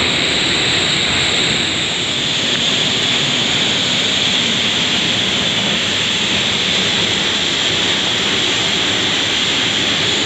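Steady, loud rush of a mountain-river waterfall and fast current.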